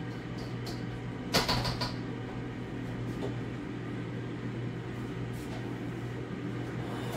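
Air fryer running with a steady hum, and a brief clatter of kitchenware about a second and a half in.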